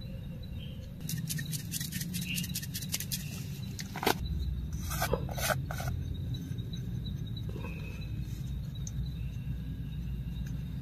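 Close handling sounds of a raw steak being seasoned on a plate: a quick run of small clicks and crackles, then a few short rustling bursts as sauce is spread and seasoning powder is shaken on. A steady low background hiss runs underneath.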